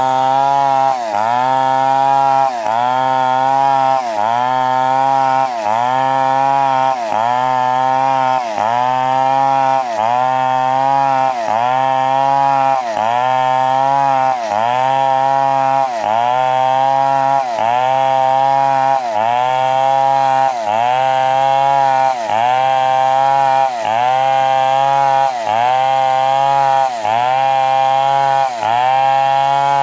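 Chainsaw running under load, cutting, its engine pitch dipping briefly and recovering in an even rhythm about every one and a half seconds.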